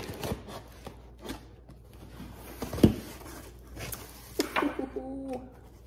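Packing tape on a cardboard box being cut with a small blade and pulled apart, giving scraping, rubbing and ripping noises, with one sharp knock about three seconds in.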